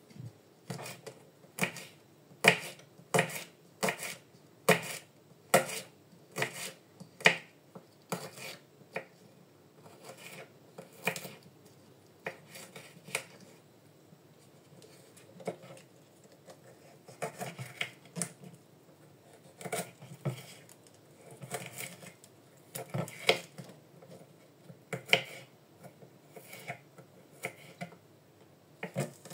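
Small kitchen knife chopping unpeeled garlic cloves on a bamboo cutting board: an uneven run of sharp taps of the blade on the board, with a short lull about halfway through.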